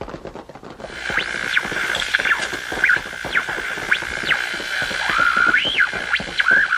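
Old radio static: dense crackling, joined about a second in by a steady whistle. Howling whistles sweep up and down in pitch over it, like the interference whistles heard while tuning an old valve radio.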